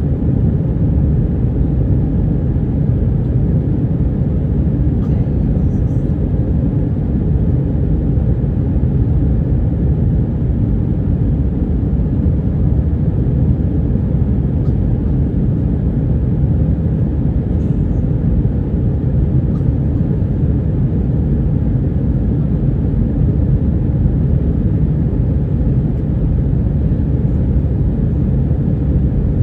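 Steady low rumble inside an Airbus A320 passenger cabin: the jet engines and airflow, even and unchanging throughout.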